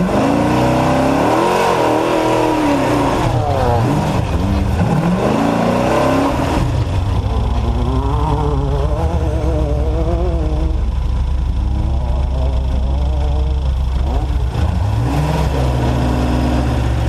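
Off-road race truck's engine under hard throttle, loud throughout, its pitch climbing and dropping again and again as the driver accelerates, lifts and shifts. In the middle stretch the pitch wavers up and down quickly over a steady low rumble, and it climbs once more near the end.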